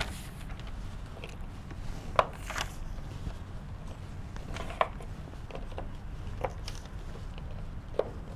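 A marker writing on a whiteboard: a few short, separate taps and scrapes of the pen on the board, over a steady low hum.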